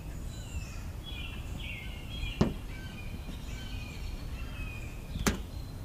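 Small birds chirping and singing over a low outdoor rumble, with two sharp clicks, one about two and a half seconds in and one near the end.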